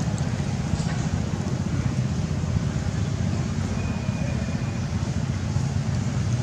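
Steady low rumbling background noise, strongest at the low end, with no distinct events; a faint thin whistle-like tone briefly about four seconds in.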